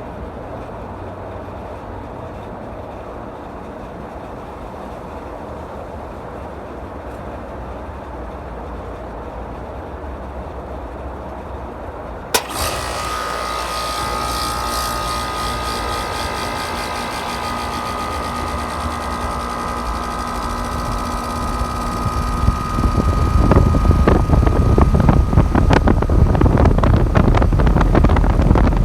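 5-ton Rheem outdoor air-conditioner unit starting up: a sharp click about twelve seconds in as it switches on, then a steady mechanical hum with a high whine. About ten seconds later a much louder low rushing rumble sets in and holds, as the condenser fan's airflow comes up.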